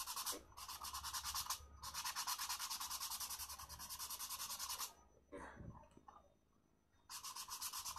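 Hand sanding a white-painted MDF box with 220-grit sandpaper: quick back-and-forth rasping strokes that smooth down the wood fibres raised by the paint. The rubbing stops about five seconds in and starts again about two seconds later.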